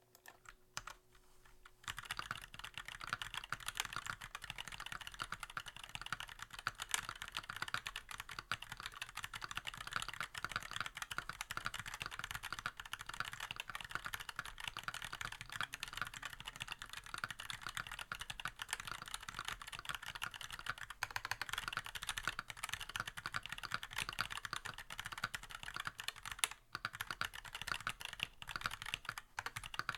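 Computer keyboard being typed on: fast, continuous key clicking that starts about two seconds in, with a brief pause near the end.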